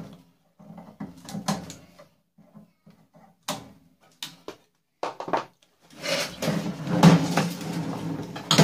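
Short metallic clinks and knocks of microwave parts and hand tools being handled. About six seconds in comes a longer, louder run of rattling and scraping as the microwave's sheet-steel case is moved and turned over.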